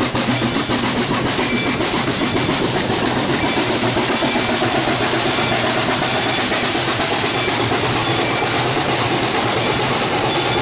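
Steam locomotive No. 142, a 2-8-2, running close by with a steady, rapid beat of exhaust and running gear and its wheels rolling on the rails.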